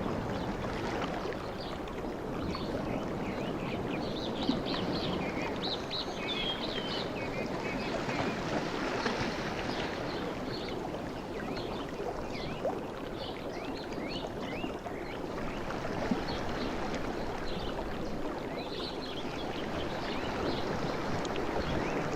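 Sea surf washing steadily, swelling slightly near the start and the end, with many small birds chirping in short high notes over it.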